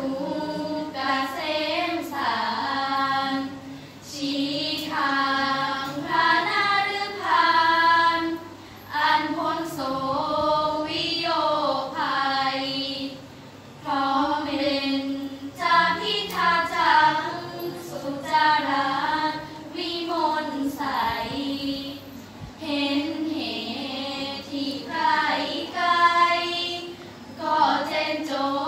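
A group of five girls chanting together in unison in the Thai sarabhanya melody, a sung Buddhist verse in praise of the Triple Gem. The chant moves in phrases of a few seconds, with short breaks for breath between them.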